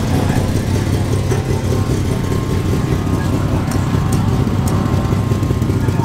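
Early Mazda RX-7 rally car's rotary engine idling, a steady low running sound.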